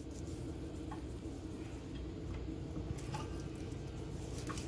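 Soft rustling and a few light ticks of hands rubbing seasoning into raw kingfish slices on a plastic bag, over a steady low hum.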